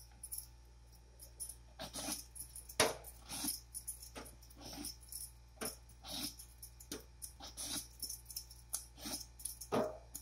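A metal vegetable peeler scraping the skin off a luffa (sponge gourd), in short, irregularly spaced strokes about one or two a second.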